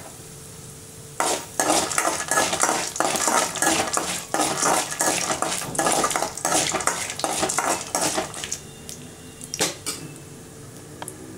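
A spoon stirring and scraping peanuts and chana dal around a metal kadai, a busy run of clinks and rattles over a low sizzle of them roasting in oil. The stirring starts about a second in and stops a little before the end, with a couple of single clinks after.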